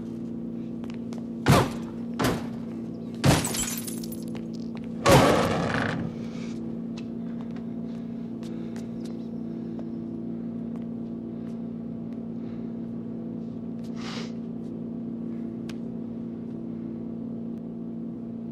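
Four hard kicks against a sports car's metal front end, the last and loudest, about five seconds in, with a crunching, breaking sound. After that only a steady low hum remains.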